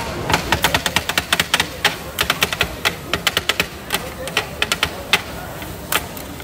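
Two flat steel kothu blades clattering on a steel griddle as chicken kothu roti is chopped, quick irregular metal strikes, several a second, thinning out near the end.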